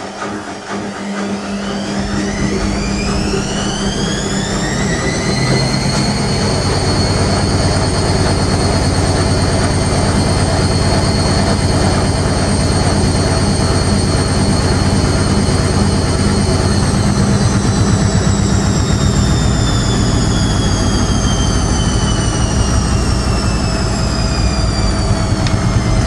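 Whirlpool front-loading washing machine running a spin: the motor whine rises over about four seconds as the drum speeds up, holds steady for about ten seconds, then slowly falls as the drum winds down, over a steady low rumble.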